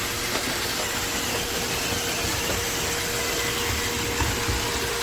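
iRobot Roomba Vac Essential (Q0120) robot vacuum running, a steady motor and suction noise with a constant whine through it.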